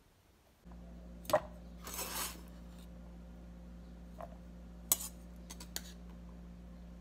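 Cooked fusilli pasta dropping into a clear plastic tub, with a sharp knock, a brief rustle, then a few lighter clicks against the plastic, over a steady low hum that starts under a second in.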